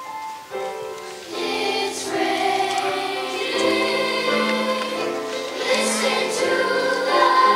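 Children's choir singing sustained notes in several parts, thin and quiet at first, then fuller and louder from about a second and a half in.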